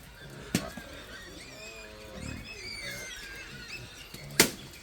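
Faint high squeaks and chirps from animals, with a few lower wavering calls in the middle, and two sharp knocks, the louder one near the end.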